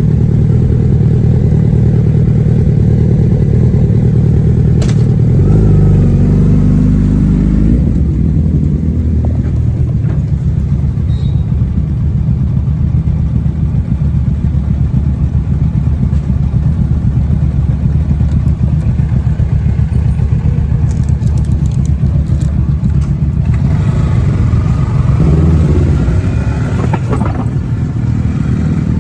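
Kawasaki ZX-10R inline-four engine with its stock exhaust, running steadily under way, the note rising and changing twice as the throttle is worked.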